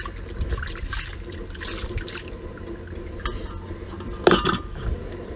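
Water poured from a kettle into a large pot of lobsters and crab, splashing. A short clatter comes about four seconds in.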